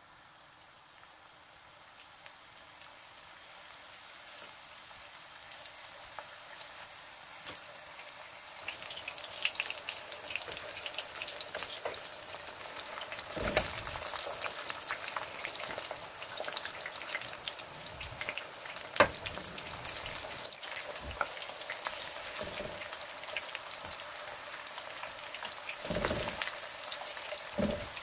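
Eggplant slices frying in hot oil in a wok, the sizzle swelling over the first several seconds and then crackling steadily. A wooden spatula knocks and scrapes against the pan several times as the slices are turned.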